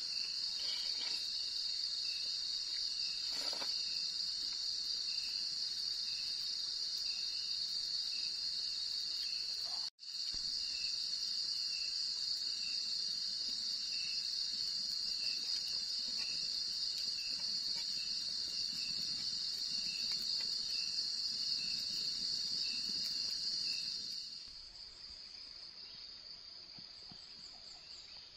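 Dense chorus of night insects such as crickets: a steady high-pitched trill with a regular pulsing chirp just below it. About 24 s in it drops abruptly to a much fainter chorus.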